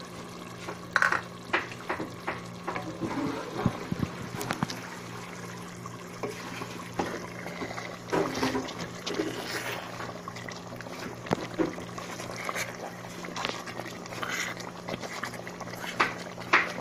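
Thick doro wet stew simmering in a pot, with irregular wet pops and a wooden spoon stirring through it as spiced butter melts in, over a steady low hum.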